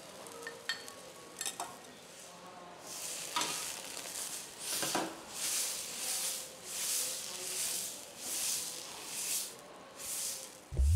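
Metal spatula working fried rice on a hot teppanyaki griddle: a few light clicks, then from about three seconds in a rhythmic run of hissing scrapes and sizzle, about one every 0.7 s. A short rising whoosh comes right at the end.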